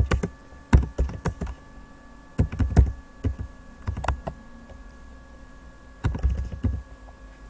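Typing on a Lenovo Yoga 510 laptop keyboard, keystrokes clicking in about four short bursts with pauses between. Under them runs the laptop's cooling fan as a faint steady hum.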